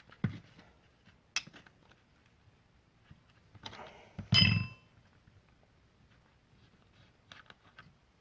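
Hand tools and small metal carburetor parts handled on a workbench: scattered clicks and taps, with one louder metallic clink that rings briefly about halfway through.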